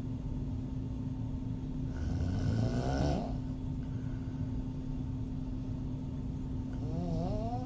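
A woman snoring through an open mouth: one snore about two to three seconds in, rising in pitch as it ends, and the next one beginning near the end. A steady faint hum runs underneath.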